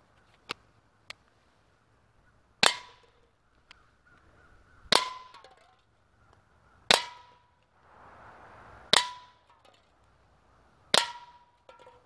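Umarex Browning Buck Mark single-pump .177 pellet pistol fired five times, about two seconds apart: each sharp crack is followed by a short metallic ring as the pellet strikes a can. Two faint clicks come just before the first shot.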